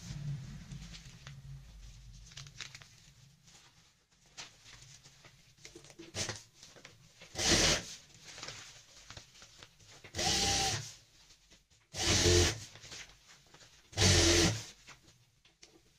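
Industrial sewing machine run in four short bursts, each about half a second long, stitching a quilted fabric strip. Before them comes soft rustling as the fabric is handled and smoothed under the presser foot.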